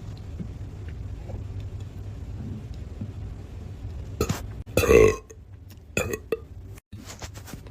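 A person burping: one loud belch about five seconds in, with a few quieter short sounds just before and after it.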